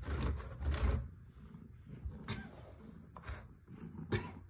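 Fingernails scraping a corrugated cardboard cat scratcher for about a second, then a few light, scattered scratches and clicks on the cardboard.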